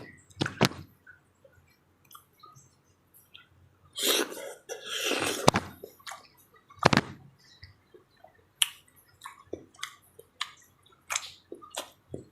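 Close-up eating sounds: wet chewing and slurping of soft, syrup-drizzled papaya, with a few sharp clicks scattered through. The loudest wet stretch comes about four to six seconds in.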